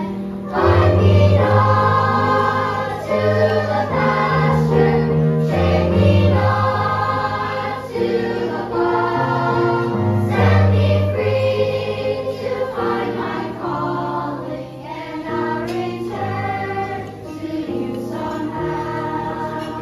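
A children's choir singing with instrumental accompaniment: held notes that change about every second over sustained low bass notes.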